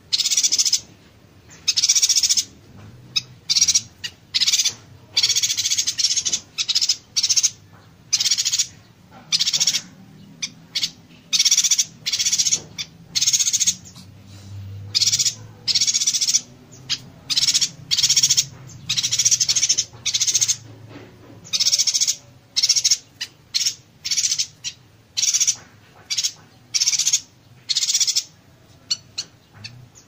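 Small caged songbird singing a dense series of high, buzzy, crackling bursts in quick succession, some short and some lasting about a second, with barely a pause between them.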